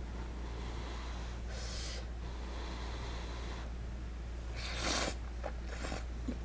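Eating sounds: a short breathy rush about a second and a half in, then a louder slurping rush about five seconds in as a mouthful of creamy penne is taken in, followed by a few small mouth clicks while chewing. A steady low air-conditioner hum runs underneath.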